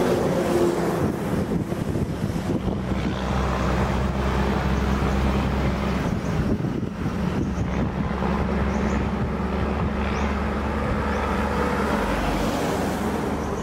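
A vehicle's engine running steadily at low revs, a constant low hum that barely changes.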